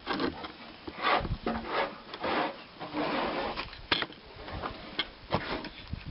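Wooden workpiece being handled and shifted on the bench: irregular scraping and rubbing strokes with a few sharp clicks.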